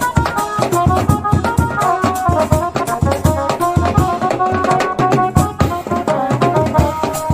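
Upbeat dance music: a fast, steady drum beat under a lead melody played on a wind-like instrument.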